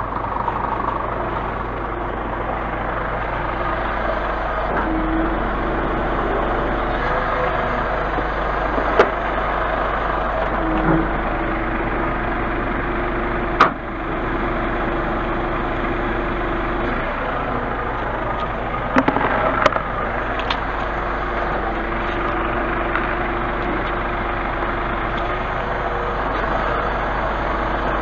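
Scania truck's diesel engine idling steadily, with a few sharp knocks and clicks along the way.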